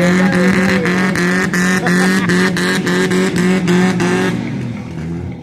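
Demolition derby car engine revved hard: the pitch climbs, then holds high with a rapid pulsing of about four a second, and falls away about four seconds in.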